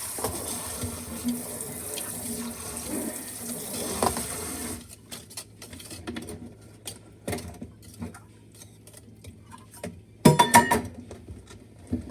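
Kitchen tap running into the sink, shut off about five seconds in. After it come a few light knocks and, about ten seconds in, a short loud clatter.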